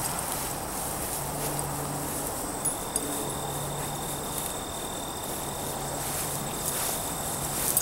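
Field crickets and other insects chirring steadily in tall summer grass, a high continuous trill. A second, lower insect tone sets in about two and a half seconds in. Light rustling and small clicks come from a dog pushing through the grass.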